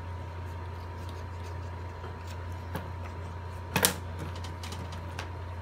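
Scissors snipping through cardstock in small scattered clicks, then set down on a wooden table with a sharp knock a little before four seconds in, over a steady electrical hum.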